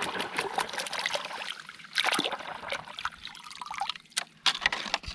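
Water splashing and trickling in uneven spurts, with a few sharp clicks near the end.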